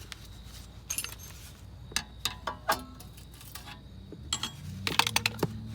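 Metallic clinks and knocks of the wheel hub and bearing assembly being pulled loose from the car: scattered single knocks, then several in quick succession near the end.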